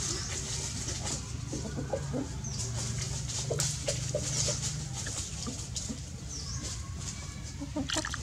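Short animal calls repeated irregularly, with a few quick high chirps above them and a steady low hum underneath; a burst of water splashing comes near the end.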